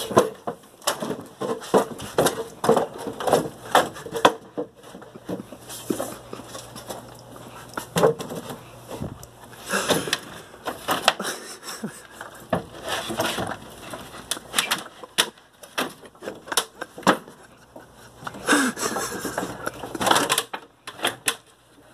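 Irregular knocks, clacks and scrapes of a wooden ladder and a painted wooden board being handled and set against a wall.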